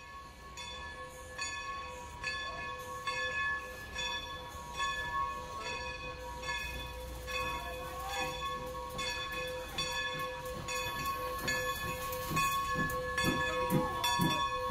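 A locomotive bell rings steadily, struck about every three-quarters of a second, each strike ringing on into the next. Low pulses join in over the last few seconds.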